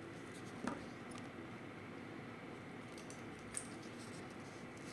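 Faint small metallic clicks of a fine watchmaker's screwdriver turning a screw in a watch movement clamped in a movement holder, over a steady low hiss. The two clearest clicks come under a second in and about three seconds later.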